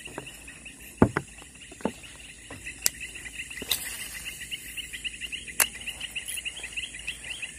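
Insects chirping rapidly and evenly, with a steady high buzz behind them. A few sharp knocks and clicks break in, the loudest about a second in.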